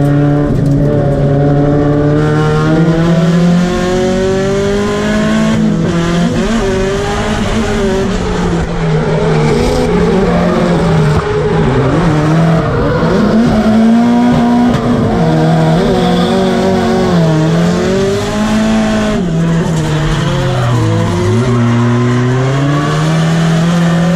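Drift car's engine heard from inside the cabin, its revs rising and falling repeatedly with the throttle while sliding, over the hiss and squeal of the tyres.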